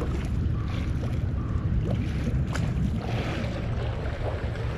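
Steady low rumble of wind buffeting the microphone, over choppy river water lapping against a concrete embankment wall.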